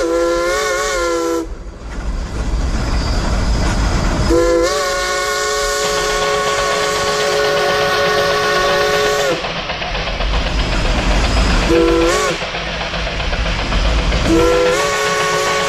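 Multi-tone steam whistle blowing in blasts: a blast that wavers and cuts off about a second and a half in, a long steady blast of about five seconds, a short toot, then another blast starting near the end, with a low rumble between them.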